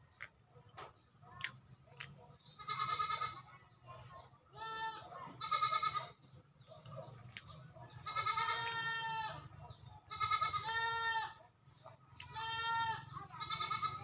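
A goat bleating again and again, about seven calls of under a second each, with a few faint clicks near the start.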